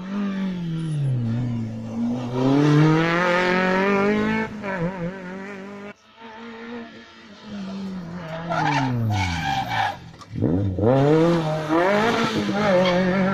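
Rally car engines running hard: the revs climb and fall again and again with gear changes and braking, one car and then, after an abrupt cut about halfway, another. Near the end the engine drops to a very low note and then climbs steeply as it pulls away.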